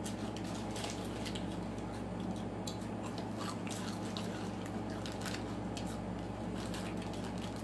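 Children chewing and crunching crisp food fast during an eating race, many short sharp crunches scattered irregularly over a steady low hum.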